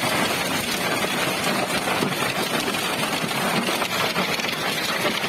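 Heavy rain pouring down during a severe thunderstorm, a dense steady hiss of falling water and spatter on pavement and rooftops.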